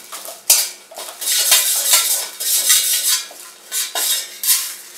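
A metal spatula scraping and clinking against a stainless steel kadhai, stirring bay leaves roasting in a little oil. The strokes repeat about twice a second.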